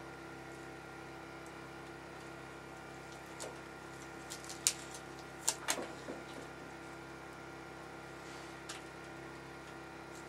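A few soft clicks and taps from small-knife work on a fisher pelt during skinning, most of them bunched together around the middle, over a steady low electrical-sounding hum.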